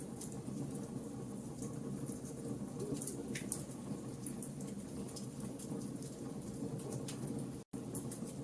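Wood fire burning in a fireplace: a steady low roar of flames with irregular sharp crackles and pops from the burning logs. The sound cuts out for an instant near the end.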